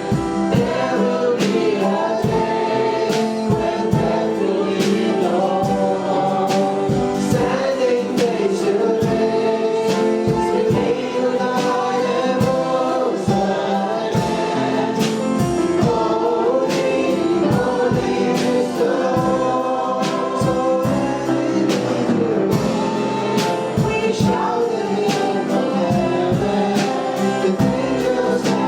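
Congregation and worship band singing a gospel worship song, voices over instruments with a steady beat.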